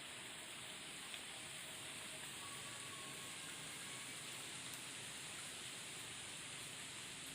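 Steady, even hiss of a flowing stream, with a few faint short high tones over it.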